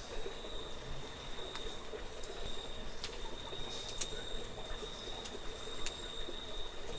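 Night insects trilling in one steady, unbroken high tone, with a few sharp clicks scattered through.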